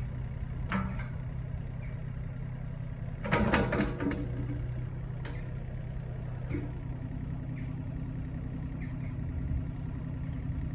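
Takeuchi TB225 mini excavator's diesel engine idling with a steady low hum, with a few sharp clicks and a short run of knocks about three to four seconds in. A second, slightly higher steady tone joins the hum about two-thirds of the way through.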